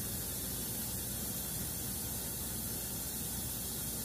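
Steady, even hiss with a faint low hum underneath: the background noise of the recording, with no distinct sound standing out.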